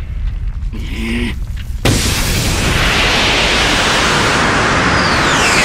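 Cartoon explosion sound effect: a low rumble, then a sudden blast about two seconds in that carries on as a loud, steady rush of noise, like a huge dust cloud bursting outward. A falling whistle sweeps down through it near the end.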